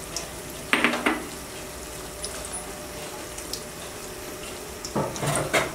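Whole garam masala spices (bay leaves, cardamom, cinnamon, peppercorns, cloves) sizzling in hot ghee in a pot, a steady frying hiss. Two brief louder noises come about a second in and near the end.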